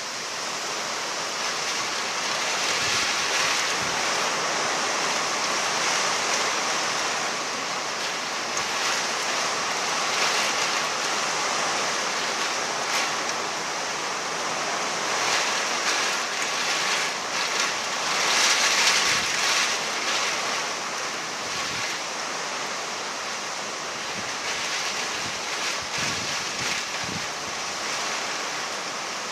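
Heavy thunderstorm rain pouring down steadily, growing louder for a few seconds past the middle.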